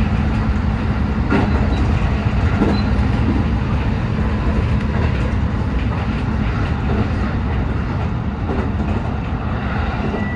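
JR West 223-series electric train running at speed, a steady rumble of wheels on rail heard from inside the leading car, with a few faint clicks from the track.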